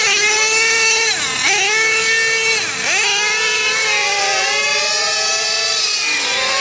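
Two nitro RC drag cars' small two-stroke glow engines revving. The throttle is blipped up and down a few times at the line, then both engines climb steadily in pitch side by side as the cars accelerate down the strip.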